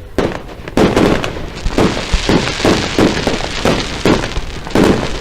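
Fireworks display going off: a rapid run of loud bangs, about two or three a second, each trailing off into a rumbling echo.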